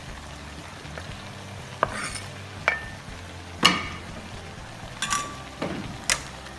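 Metal clinking against a steel wok about six times at irregular intervals, some clinks ringing briefly, over crabs and onions sizzling in the pan.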